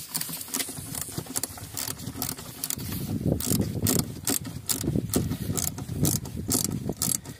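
Socket ratchet wrench clicking in quick, irregular runs as it is swung back and forth, tightening a T50 Torx bolt on a Jeep Wrangler JL's windshield hinge.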